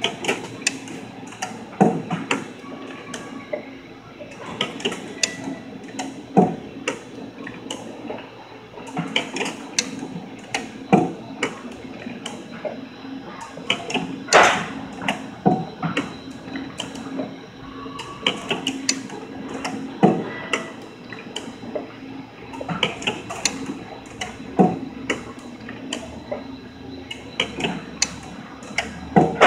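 HTC20 CNC spring coiler with its looping station running a repeating cycle: a steady hum under clusters of quick mechanical clicks and clacks from the tooling, with a sharper knock about every four and a half seconds as side-loop extension springs are formed from .025-inch stainless wire.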